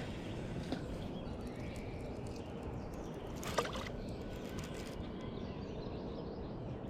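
Steady rush of flowing creek water, with one brief sweeping sound about three and a half seconds in.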